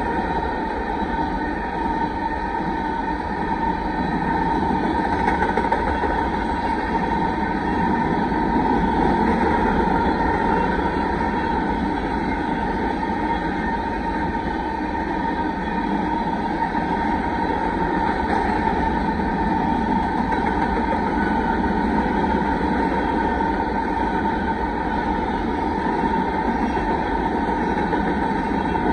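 Freight train of covered grain hopper cars rolling steadily past, a continuous rumble of wheels on rail with a steady high tone over it.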